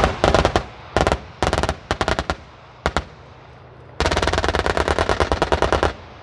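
Type 87 self-propelled anti-aircraft guns firing their twin 35 mm Oerlikon KDA autocannons in rapid bursts. Several short bursts come in the first two seconds or so and a single shot near three seconds, then a long burst of about two seconds starts about four seconds in.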